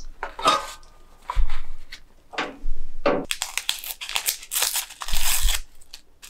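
A chamomile tea-bag sachet being torn open and crinkled by hand, with a long rustling tear starting about three seconds in. Short handling noises come before it.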